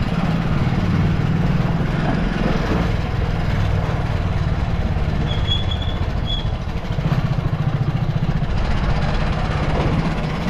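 Motorcycle engine running as the bike rides slowly, a steady low throb that eases off a little midway and picks up again. Two brief high chirps sound a little past halfway.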